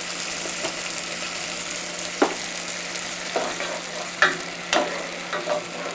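Grated onion, garlic and pepper sizzling in hot oil in a pot while a wooden spoon stirs, with a few sharp knocks of the spoon against the pot from about two seconds in.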